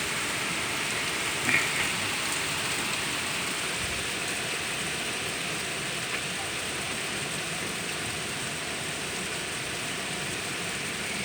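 Steady hiss of heavy, wind-driven hurricane rain and wind during a whiteout rain band, with one brief louder burst about a second and a half in.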